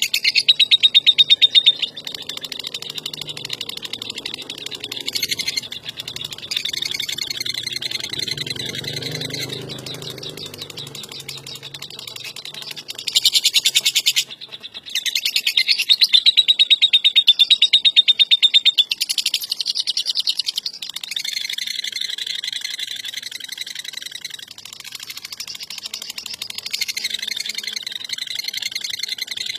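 Lovebird ngekek: one long, unbroken, rapid rattling chatter of high notes, swelling louder in several bouts along the way.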